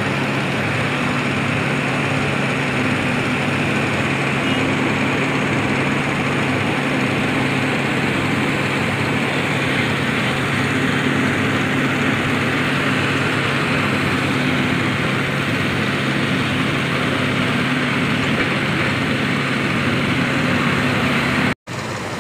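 Diesel engines of heavy construction machinery (a mobile crane and excavators) running steadily, a continuous low drone with a steady hum. Near the end the sound cuts out for an instant and resumes a little quieter.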